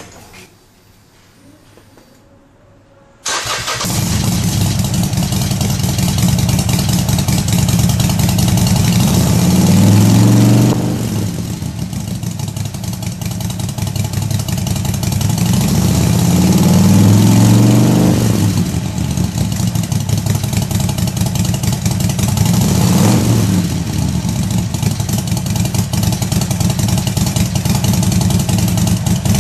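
Harley-Davidson XL1200X Forty-Eight's 1200 cc V-twin starts abruptly about three seconds in and runs through Screamin' Eagle black slip-on mufflers. It settles to idle, with three throttle blips that rise and fall back.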